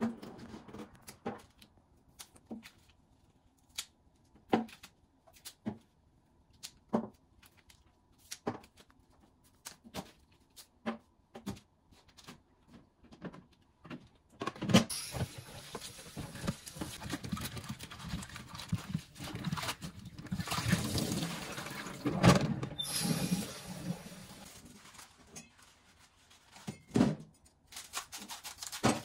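Scattered light knocks and clinks of kitchenware, then from about halfway a stretch of liquid splashing and sloshing, with more knocks mixed in.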